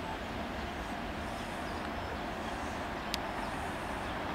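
Distant electric train hauled by an FS E656 locomotive rolling slowly over the station pointwork, a steady rumble. A single sharp click sounds about three seconds in.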